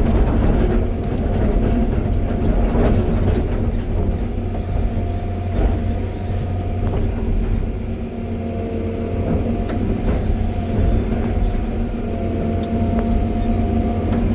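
John Deere 350G excavator's diesel engine running steadily, with a constant hum and scattered knocks and clanks.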